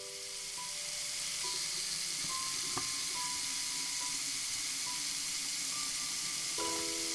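Steady hiss of tap water running into a kitchen sink during dishwashing, with one sharp clink about three seconds in. Soft sustained music notes sound over it: a chord at the start, scattered single notes, and another chord near the end.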